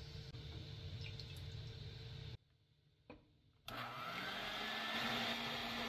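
Hamilton Beach 5-speed electric hand mixer switching on after a brief silence, its motor whine rising and then holding steady as the beaters whir through egg whites in a glass bowl.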